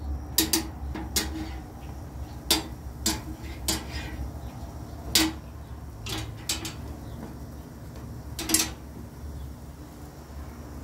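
Metal tongs clacking against a grill grate while corn tortillas are turned: about ten sharp metallic clicks at uneven intervals.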